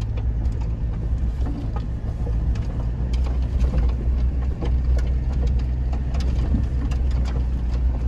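Car engine running steadily under load as the car climbs a rough dirt track, heard from inside the cabin, with scattered knocks and rattles from the body and suspension over the bumps.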